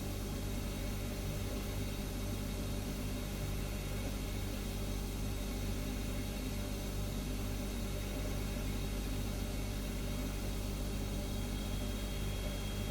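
Refrigerator humming steadily: an even low hum with several steady tones under a light hiss. A faint high whine joins near the end.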